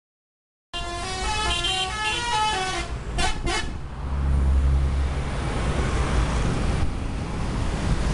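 Bus telolet multi-tone horn on a Bulan Jaya Purnama coach playing a quick tune of changing notes for about two seconds, then a few short toots. After that, the coach's low engine rumble and road noise as it passes close.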